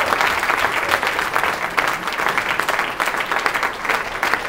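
Crowd applauding: many people clapping in a dense, steady patter.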